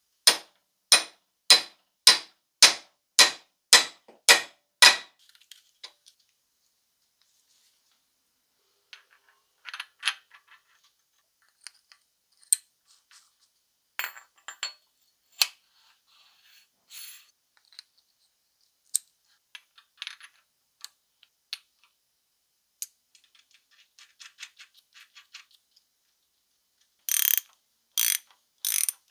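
About nine quick, evenly spaced taps of a wooden mallet on the end of a steel shaft carrying a spiral bevel gear from a Keyang PHD-38 demolition hammer drill. Scattered light clicks of small steel gear parts being handled follow. Near the end, a socket ratchet wrench on the gear stack clicks in three short bursts.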